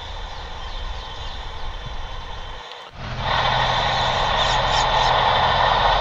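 A train passing in the distance: a steady racket that swells sharply about three seconds in, after a brief dip, and holds loud, with small birds chirping faintly over it.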